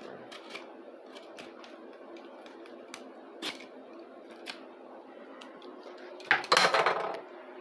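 Hard plastic toy-track pieces being handled and pulled loose: scattered light clicks and taps, then a louder scraping rattle about six seconds in.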